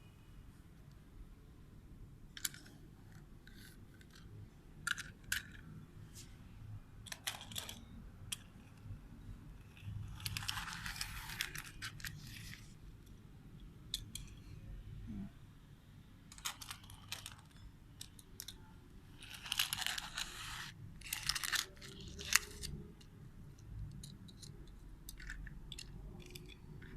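Plastic toy cars and playset pieces being handled: scattered light clicks and taps, with two longer scraping rustles about ten and twenty seconds in.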